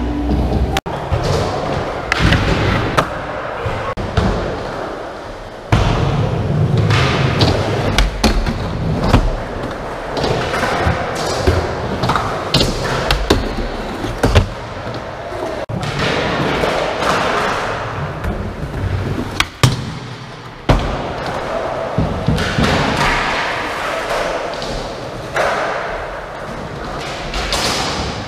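Skateboard wheels rolling over ramps and concrete, broken by repeated sharp thuds and clacks as the board lands and strikes ledges and coping.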